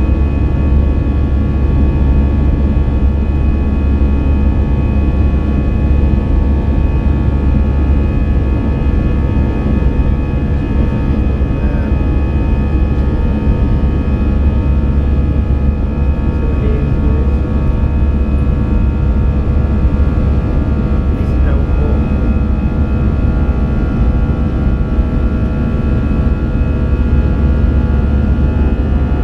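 Steady cabin noise of a jet airliner in flight, heard from a seat beside the wing: a deep rumble from the turbofan engines and airflow, with several steady whining tones above it.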